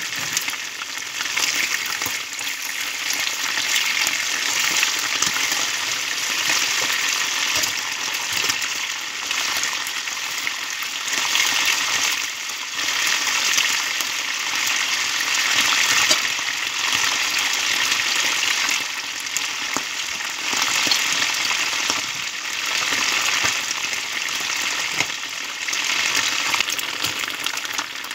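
Chicken wings sizzling as they fry in oil in a nonstick frying pan, the hiss swelling and easing every few seconds.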